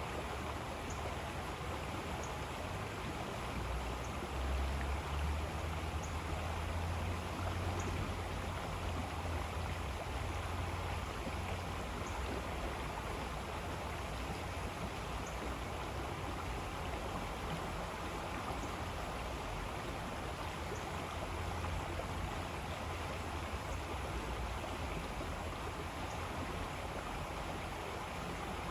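River water flowing steadily, with a deeper rumble underneath that swells for a while in the first half.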